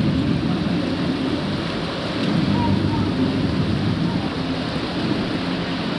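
Steady rush of falling water, a dense low roar that swells in suddenly at the start and holds evenly.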